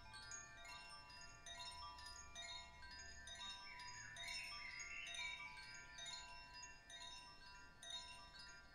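Soft chimes ringing, with many overlapping high metallic tones struck one after another and left to ring. A brighter, wavering shimmer rises about four to five seconds in.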